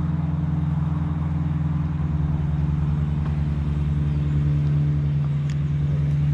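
Steady low motor hum, unchanging in pitch.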